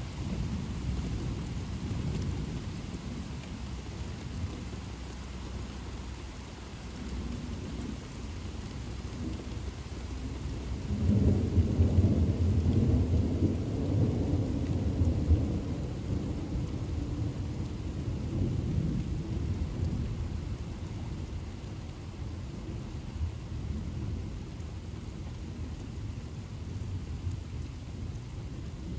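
Thunder rumbling over steady rain, with a loud roll of thunder building about eleven seconds in and dying away over the following several seconds.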